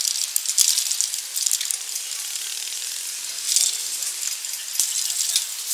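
Outdoor ambience made heavily high-pass filtered and amplified, so it comes through as hiss and crackle in irregular surges with a few faint clicks and no low end.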